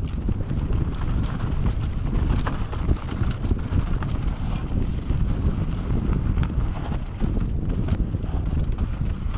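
Mountain bike descending a rough, rocky trail at speed: tyres crunching over loose rock, with a continuous rapid clatter and knocks from the bike, and wind rumble on the microphone.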